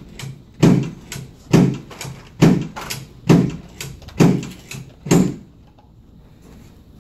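Chiropractic adjusting table thudding under a run of quick adjusting thrusts, six loud thuds about a second apart, each with a lighter click between them, stopping a little after five seconds in. The adjustment is meant to correct a left leg that is short by about half an inch.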